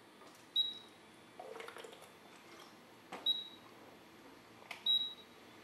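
Three short, high electronic beeps, each with a click just before it, spread over a few seconds, with a brief rustle between the first two.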